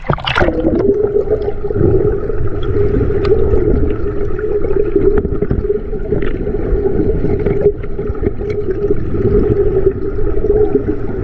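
River water rushing steadily through a small rapid, loud and close, with a constant droning tone running through it. A short falling swish comes at the very start.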